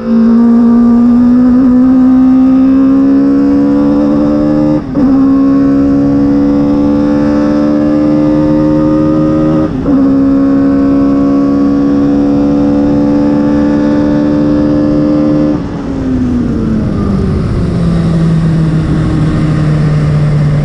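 Swift DB4 race car's Toyota 4A-GE four-cylinder engine at full throttle, heard from on board with loud intake noise, its note climbing through the revs with two quick upshifts about five seconds apart. About three-quarters of the way through the throttle comes off, the note falls away and settles into a steady lower drone.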